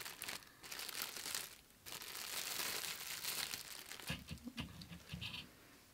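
Thin clear plastic bag crinkling and rustling as it is pulled off a small plastic figurine, in two stretches: a short one at the start and a longer one from about two seconds in, then softer rustles.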